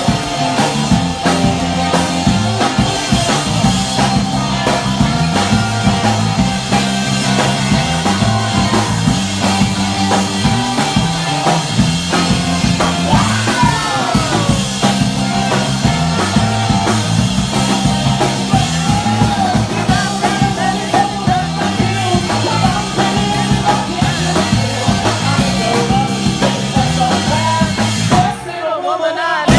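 Live rock band playing: drum kit, bass guitar, rhythm and lead electric guitar, with sung vocals. The band drops out briefly near the end, then comes back in.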